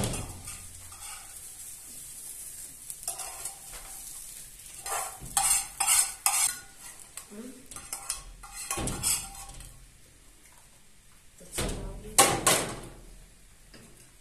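Irregular clatters and knocks of objects being handled, with the loudest strikes clustered about five to six, nine and twelve seconds in.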